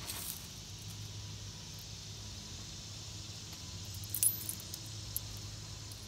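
A keychain ferro rod and its ring jingling briefly in the hand, a cluster of light metallic clinks about four seconds in and one more click a second later. A faint rustle of dry leaves comes at the start, over a steady low background hum.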